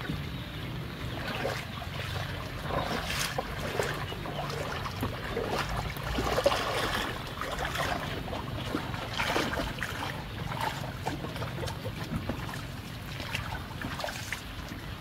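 Shallow floodwater sloshing and splashing around a person wading through it, with irregular knocks and splashes as wooden planks are shifted.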